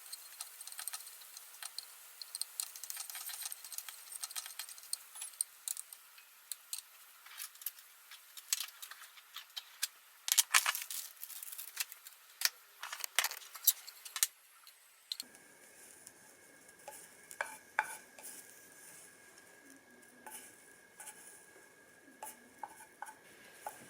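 Kitchen utensils clinking and scraping against cookware during cooking, over a faint high hiss. About fifteen seconds in the sound changes abruptly to quieter, sparser clinks over a faint steady tone.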